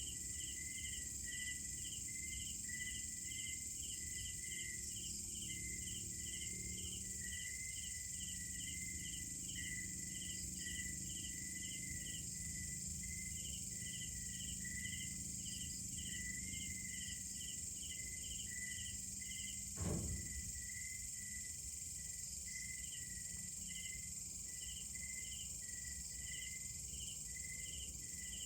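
Tropical night insect chorus: a steady high-pitched drone with crickets chirping in even pulses, about three a second, pausing briefly a few times. A single short low thud about twenty seconds in.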